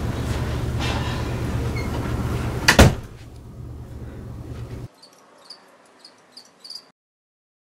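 A low steady rumble ends with a door being shut with one sharp, loud bang about three seconds in. After it come faint crickets chirping in short repeated chirps, then silence.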